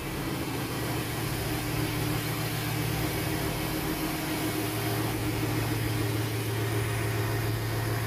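2007 Jeep Grand Cherokee's 4.7-litre V8 idling with a steady, even hum, without dipping and rising. The idle sounds smooth after a new throttle position sensor was fitted to cure a fluctuating rough idle, though the owner says time will tell.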